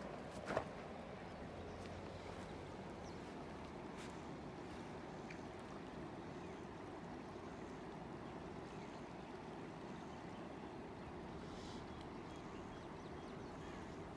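Faint steady background noise, with a single sharp knock about half a second in and a few fainter clicks later.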